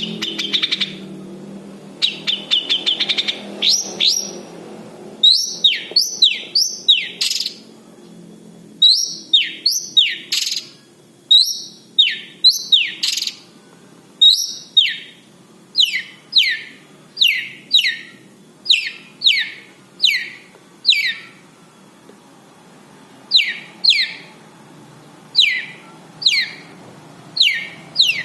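Long-tailed shrike (cendet) singing: a short harsh chattering trill, then a long series of sharp, downward-sweeping calls, first in quick runs and then repeated about once a second.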